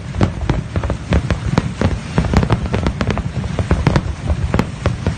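Fireworks going off in rapid, irregular succession, many sharp cracks and pops a second over a continuous low rumble of bursts.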